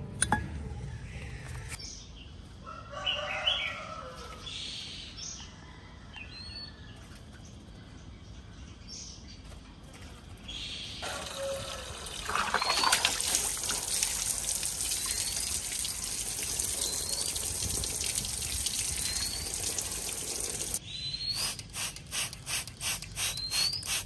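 Oriental magpie-robins bathing in a water dish: water splashing for several seconds with a short rising chirp about every two seconds, then a quick run of splashes near the end.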